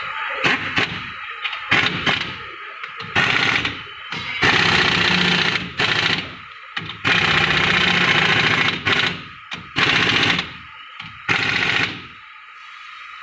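Pneumatic impact wrench hammering in a string of short and longer bursts as it runs down the differential carrier bearing cap bolts on a Mahindra Scorpio pickup's rear axle.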